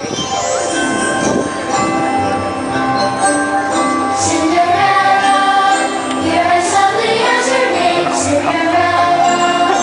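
Fireworks-show soundtrack music with singing and jingling bells, with a few short bright high accents in the second half.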